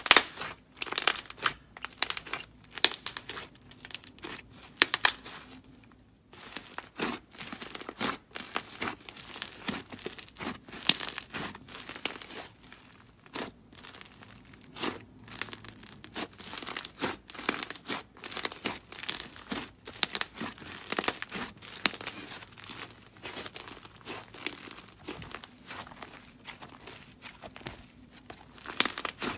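Hands squishing, pressing and stretching a soft clay slime, giving dense, irregular crackles and tearing sounds as the slime pulls apart, with a short pause about six seconds in.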